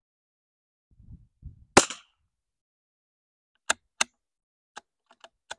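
A single shot from a Marlin 780-series .22 rimfire bolt-action rifle about two seconds in, sharp with a short echo. Two crisp clicks follow a couple of seconds later, then several fainter ones, as the bolt is worked.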